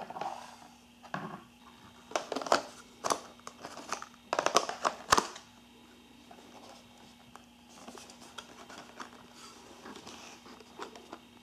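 Plastic clicks and rattles as an instax Wide film pack is slid into the film compartment of a Fujifilm instax Wide 300 camera, a run of sharp clicks over about three seconds ending in the loudest click just after five seconds in. Softer handling of the camera's plastic back follows.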